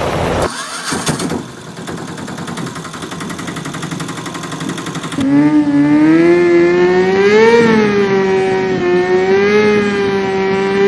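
Dubbed vehicle sound effects: a rapid buzzing engine-like sound, then from about five seconds in a loud car engine sound with a steady pitch that rises and falls slightly, like a race car revving.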